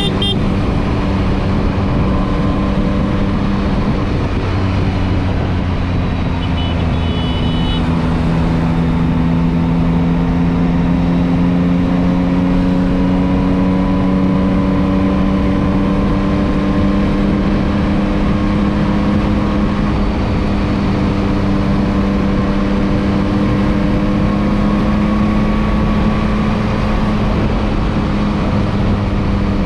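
Yamaha MT-09's three-cylinder engine running at highway cruising speed under heavy wind noise. The engine note drops briefly about four seconds in, then climbs slowly and holds steady.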